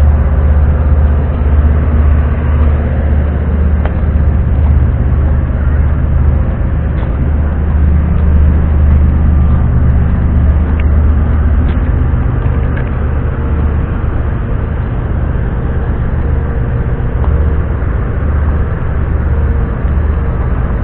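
A large engine running steadily: a loud, even low hum that does not change, with a few faint clicks.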